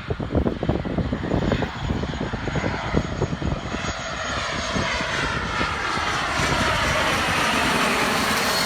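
Jet aircraft on approach to land, its engine roar growing steadily louder with a whine that slides down in pitch in the second half. Irregular low buffeting is heard in the first few seconds.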